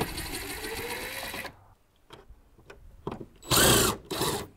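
Cordless drill/driver backing out the mounting screws of a wall-mounted EV charging station. It runs for about a second and a half, rising slightly in pitch, then stops. After a pause with a few small clicks, a short louder burst spins up and back down, followed by another brief one.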